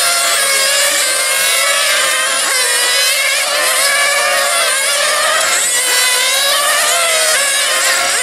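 Several 1/8-scale 4x4 nitro RC race cars' small two-stroke glow engines whining at high revs together. Their pitches keep rising and falling as the cars accelerate and lift off through the corners.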